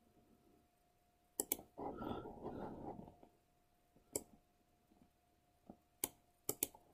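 Computer mouse clicks, a handful of single clicks spread across several seconds, faint. A soft breathy rustle comes about two seconds in, over a faint steady hum.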